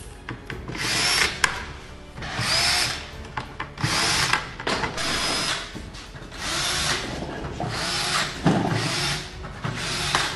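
Cordless drill running in about eight short bursts, each under a second, each with a high whine.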